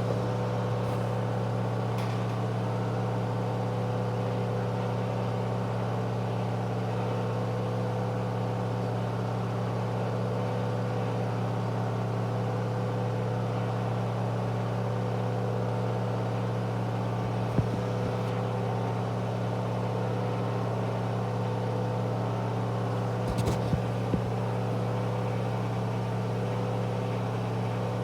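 Candy washing machine in its final 1000 rpm spin: a steady, even drum-and-motor hum. A few faint clicks come about two-thirds of the way through and again near the end.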